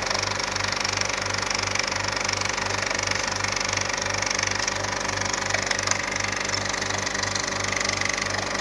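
Movie film projector running as a sound effect: a steady mechanical whir with hiss, and a low pulse repeating about two to three times a second.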